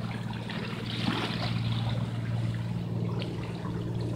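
Small sea waves lapping and splashing against shoreline rocks, with a steady low hum underneath.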